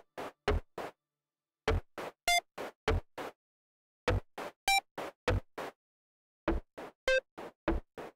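Electronic sound-design score of short, sharp synthetic clicks and blips, some carrying a bright pitched ping, ticking at about three a second in runs broken by silent pauses of about a second.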